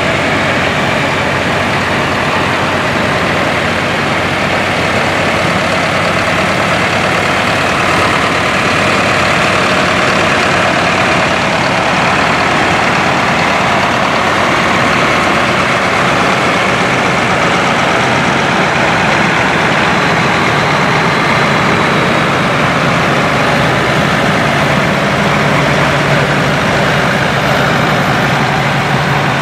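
Engines of vintage farm tractors running steadily as they drive slowly past one after another, among them a John Deere 3020 and an International 666.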